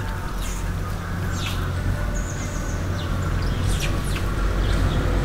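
Small birds chirping: several short, high, falling chirps and a brief trill, over a low steady rumble.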